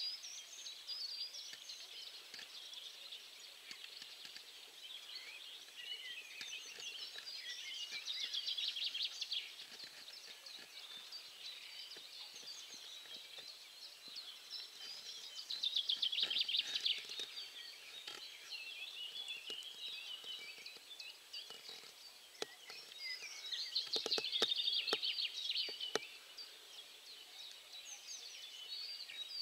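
Several songbirds singing at once in a steady chorus of chirps and trills, with three louder spells of fast, rattling song.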